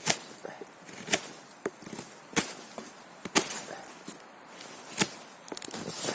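Pocket-knife blade whittling a rotten aspen stick: short, sharp cutting strokes about once a second, some loud and some fainter.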